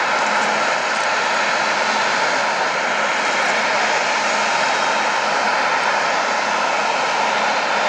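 Airplane engines running steadily at constant power: an even, unchanging noise with a few steady whining tones through it.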